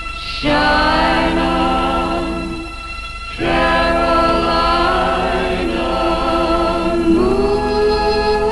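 A woman singing a slow song with musical accompaniment. Her voice holds long notes in three phrases, with short breaks between them, and steps up in pitch near the end.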